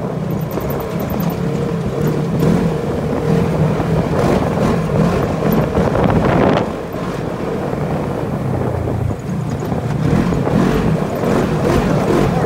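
Off-road vehicle engine running steadily, with wind blowing across the microphone.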